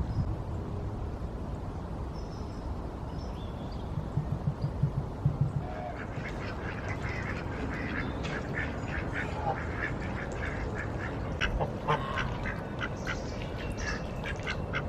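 Ducks quacking: a run of rapid, short calls that starts about six seconds in and keeps going. Before that, a low rumble with a few thumps.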